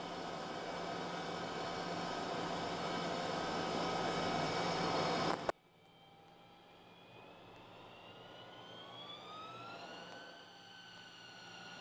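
A jet engine whining steadily, heard from inside the closed cockpit. About halfway through, a sharp click, and the sound drops abruptly to much quieter; near the end the whine rises in pitch as the engine spools up.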